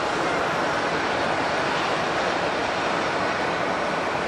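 Jet airliner engine noise: a steady rushing sound with a faint, steady high whine on top.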